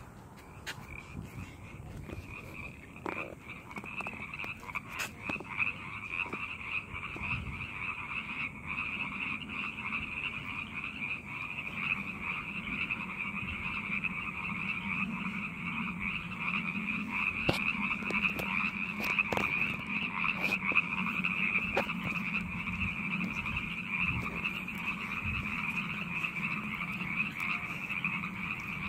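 A dense chorus of many frogs calling at once, their overlapping calls blending into a steady, fluttering trill. It grows louder over the first several seconds and then holds steady.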